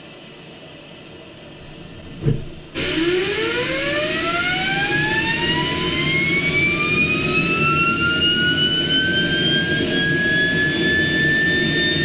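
Homemade turbojet with a centrifugal compressor spooling up: a whine rising steadily in pitch for about nine seconds and slowly levelling off, over a steady loud rushing noise that starts suddenly a little over two seconds in. A single low pop comes just before the rush starts.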